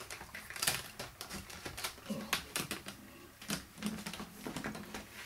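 Hard resin parts of a DollShe ball-jointed doll clicking and knocking together as its hip and leg joints are moved by hand, a run of irregular sharp clicks. The hip joint keeps popping out of place.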